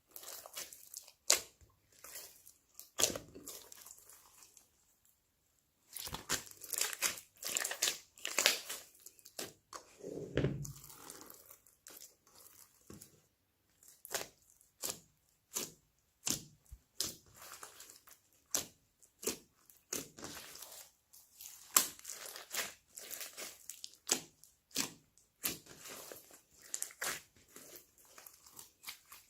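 Slime being squished, stretched and pressed by hand, giving an irregular run of sticky clicks, pops and crackles, with a short pause about five seconds in.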